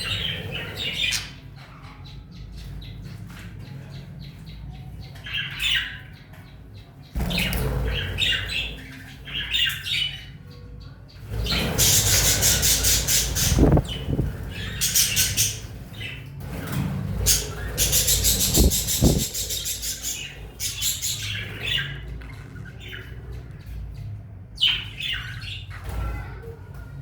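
Aviary birds calling: scattered chirps and harsh squawks, with two loud bouts of rapid, grating squawking about midway through.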